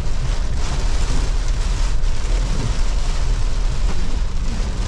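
Heavy rain drumming steadily on a Mahindra Bolero's body and windscreen, heard from inside the cabin, over the low rumble of the vehicle driving.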